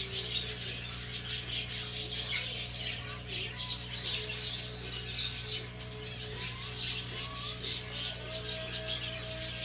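Small pet birds chirping and twittering, over a steady low electrical hum.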